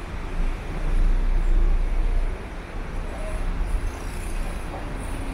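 Low rumble of motor traffic, with a vehicle passing that is loudest from about one to two seconds in and then fades.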